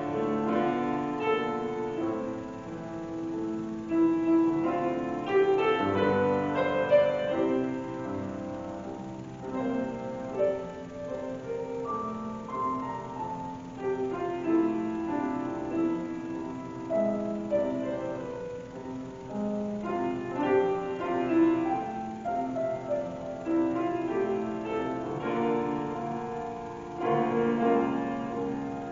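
Solo piano playing a slow, flowing instrumental piece of several notes at a time.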